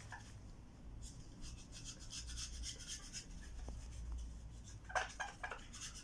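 Faint, irregular scratching and rubbing from a small object being worked between the hands, with a brief cluster of sharper scrapes about five seconds in.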